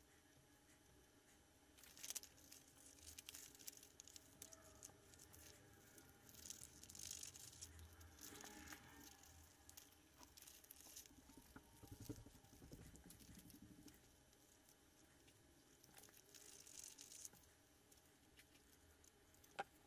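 Faint snipping of scissors cutting paper pattern pieces, with paper rustling, in irregular bursts starting about two seconds in and easing off for a moment a couple of times.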